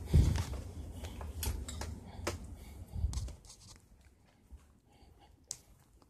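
Handling noise from tools and refrigerant gauge hoses carried by someone walking: rustling with scattered knocks and clicks, a heavy thump at the start and another about three seconds in. It goes much quieter from about halfway.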